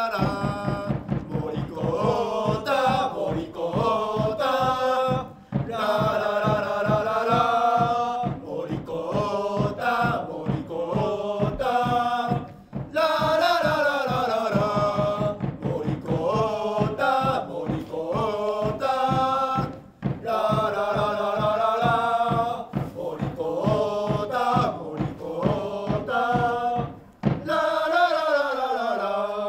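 Football supporters chanting a player's chant in unison, his name sung twice and then 'la la la', over a steady drumbeat. The phrase repeats with short breaks between lines.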